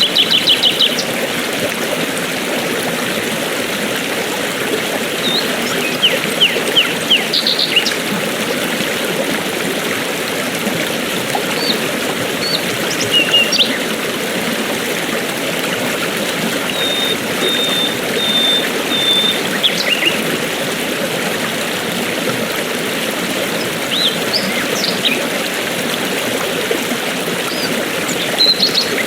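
A stream running steadily over rocks, with small songbirds chirping now and then over it in short runs of quick notes.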